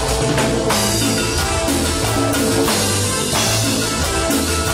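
Live Latin band playing an instrumental passage: electric bass line, sustained keyboard chords and drum kit keeping a steady beat, with no singing.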